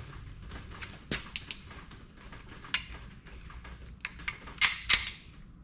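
Ratchet clicks and metallic clicks from a long torque wrench worked on the crankshaft main bearing cap bolts of a 6.0 L LQ4 V8 block, as the bolts are tightened a further angle past their torque setting. The clicks are scattered, with the loudest bunch near the end.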